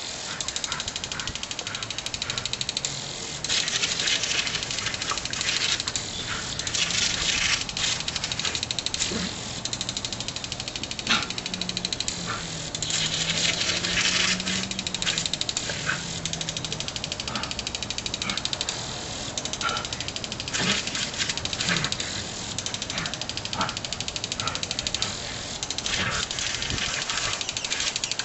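Water spraying from a garden hose sprinkler in a steady hiss, louder in spells as a dog bites and splashes at the jet.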